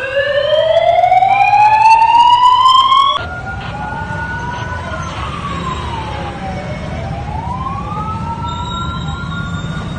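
An emergency siren wailing. For about three seconds a loud siren rises steadily in pitch, then cuts off abruptly. A quieter siren carries on, holding a high note, sliding slowly down and climbing back up.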